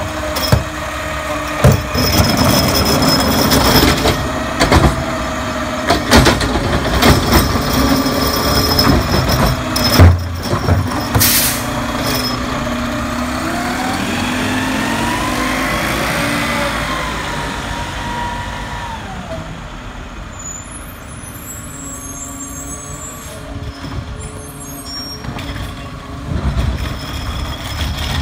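Automated side-loading garbage truck at work: its diesel engine runs under repeated knocks and clatter from carts and trash, with a short air-brake hiss about 11 seconds in. Then the engine revs up and eases back down, and a few more knocks follow near the end.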